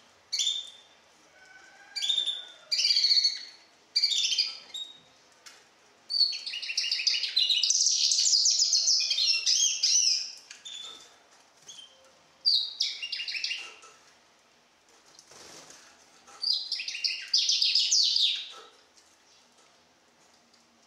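Young goldfinch × canary hybrid (a 'mule') singing a series of phrases made of fast trills and chirps, with one long phrase of about four seconds near the middle. It is a four-month-old bird still learning its song, tutored on nightingale song.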